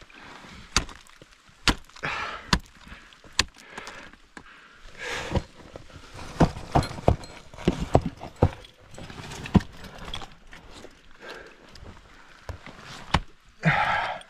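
Ice tools and crampon points striking ice: a run of sharp, irregular knocks, some close together and some spaced out.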